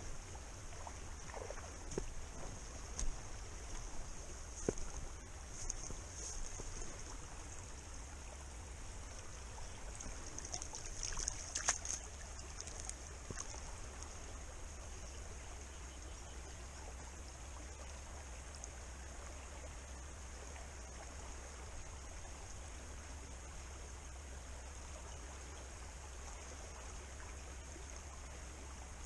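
Shallow river running steadily over a gravel bed, with a few splashes and knocks from boots wading in the water during roughly the first twelve seconds.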